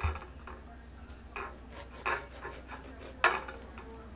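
Serrated knife sawing through a loaf of bread and knocking against the plate beneath it: a few short scrapes and clicks, the loudest about three seconds in.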